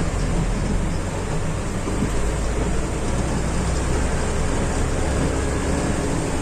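Steady rain with a deep, constant engine rumble underneath.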